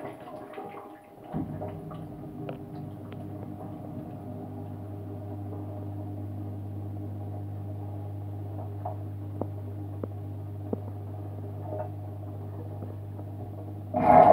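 Dishwasher running, heard from inside the wash tub: a steady low pump hum starts about a second and a half in, under water sloshing and spraying, with scattered sharp clicks.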